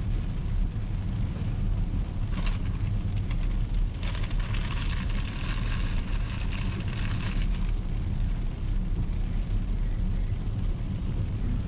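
Car interior road noise while driving on a wet road: a steady low rumble of tyres and engine, with a brighter hiss that swells for a few seconds in the middle.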